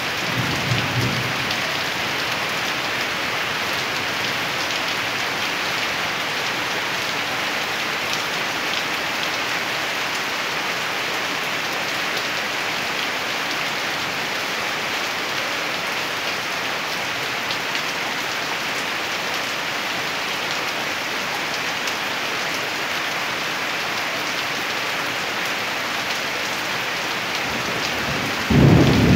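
Steady rain falling, a dense even hiss, with a low thunder rumble dying away in the first second and a sudden loud thunderclap rumbling near the end.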